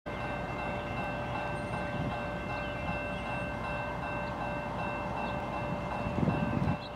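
Railroad grade-crossing warning bell ringing steadily, signalling an approaching train, over a low rumble. A louder low rumble swells briefly about six seconds in.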